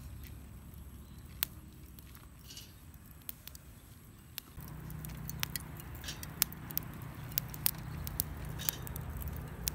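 Scattered light clicks and taps of corn cobs being laid on a wire grill rack over charcoal, over a low steady rumble; from about halfway through, the rumble is louder and the clicks come more often.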